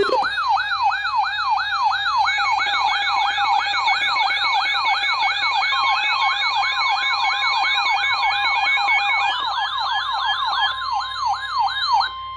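Weather alert radio alarms for a severe thunderstorm warning: several electronic siren wails sounding together, each rising and falling about three times a second. A steady tone joins about six seconds in, and the wailing cuts off near the end.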